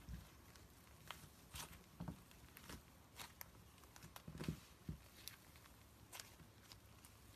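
Slime being handled and pressed by hand, giving faint, irregular little clicks and pops.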